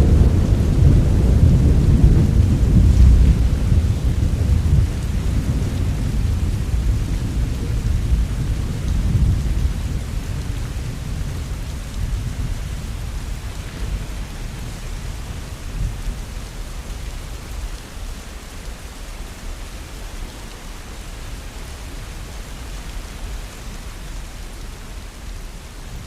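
Rain falling steadily under a low rolling rumble of thunder. The rumble is heaviest in the first few seconds, and the whole sound slowly fades out.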